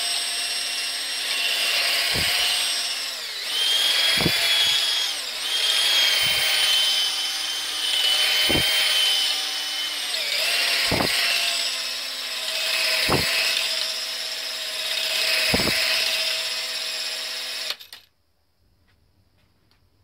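Drill running at its lowest speed, spinning a shotgun cleaning rod and barrel brush that is worked in and out of the barrel to loosen fouling. The steady motor whine dips in pitch now and then, with a dull knock about every two seconds. The drill stops suddenly near the end.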